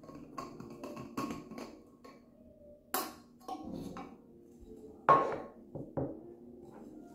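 A few sharp knocks and clatters, like hard objects set down or tapped, the loudest about five seconds in, over quiet background music.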